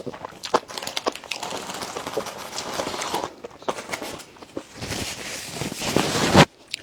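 Close-miked eating: crunching and chewing with many small mouth clicks and crackles, rising to a louder stretch of crunching near the end that cuts off abruptly.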